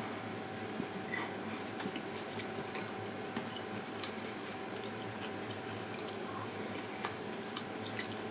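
Quiet steady room hum with a faint constant tone, and soft, irregular small clicks and ticks scattered through it.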